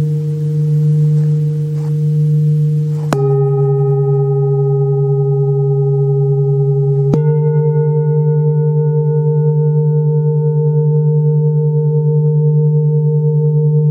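Large hammered metal singing bowls ringing with deep, sustained tones, struck with a padded mallet about three and seven seconds in, each strike bringing in a new set of tones. The ringing wavers in a slow pulse.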